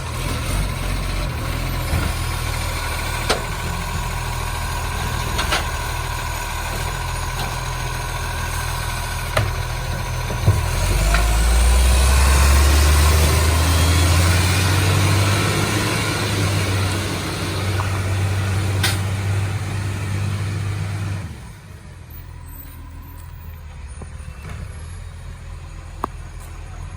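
Recycling truck's diesel engine running, revving up about ten seconds in and holding higher before easing back. A few sharp clicks and knocks come over it. The sound drops off abruptly at about twenty-one seconds, leaving a quieter engine sound.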